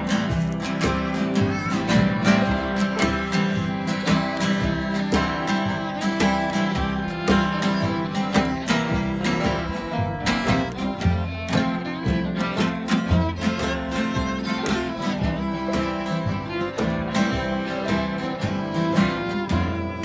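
Live acoustic string band jamming: a fiddle playing over steadily strummed acoustic guitars, with an upright bass underneath.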